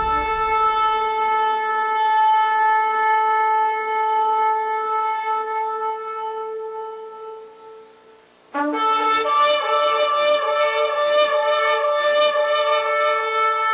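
Shofar blown in two long sustained blasts: the first held steady for about eight seconds and fading away, the second starting suddenly just after, brighter and held on.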